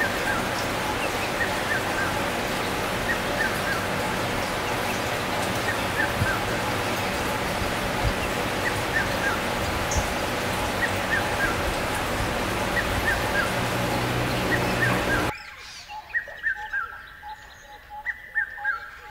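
Small birds chirping, short falling chirps often in pairs, repeating over a steady loud rushing noise. The rushing noise cuts off suddenly about fifteen seconds in, leaving the chirps over a quiet background.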